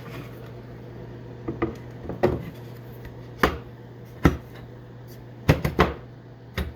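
Scattered knocks and clacks of objects being handled, about nine in all, several in quick succession near the end, over a steady low hum.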